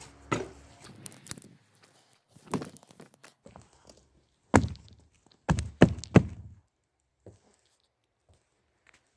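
A handful of irregular dull thumps and knocks, with the loudest group of three or four about five to six seconds in.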